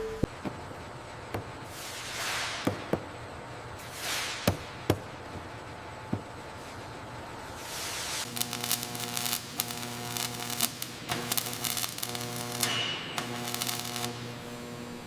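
Mechanical sound effects: falling hisses three times and scattered sharp clicks, then from about eight seconds in a pulsing machine hum that cuts in and out, with rapid clicking over it.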